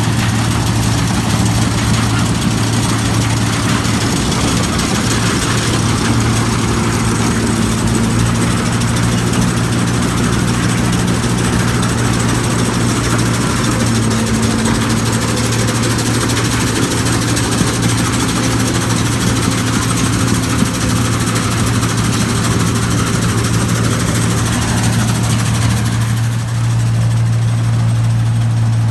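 New Holland Clayson 1545-S combine harvester running steadily while harvesting rice: a deep, even engine hum under a broad rushing noise from the working machine. The higher rushing part drops away near the end.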